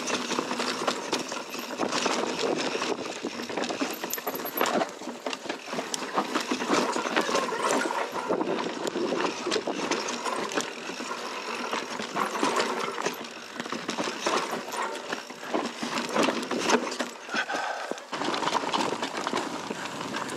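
Mountain bike riding down a dirt singletrack trail: knobby tyres running over dirt and leaves, with the bike rattling and clattering steadily over bumps.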